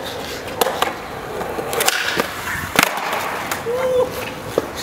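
Skateboard wheels rolling on concrete, with several sharp clacks of the board against the pavement spread through, the loudest a little before the 3 s mark.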